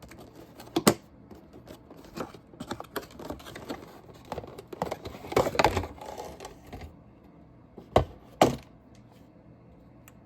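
Handling of a Denix replica percussion pistol: irregular clicks and knocks of metal and wood parts, busiest around five to six seconds in, with two sharp loud clicks a half second apart about eight seconds in.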